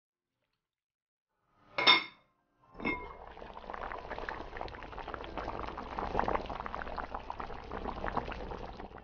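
A ringing metal clink, then a smaller one about a second later, then hot stir-fried noodles sizzling steadily with a fine crackle.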